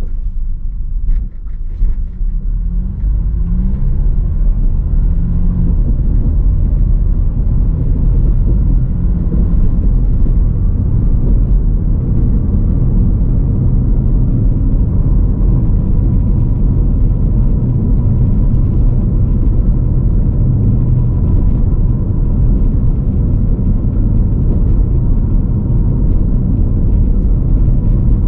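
Car driving on a paved road, heard from inside the cabin: a steady low engine and tyre rumble. The engine note rises over the first few seconds as the car speeds up, then holds even.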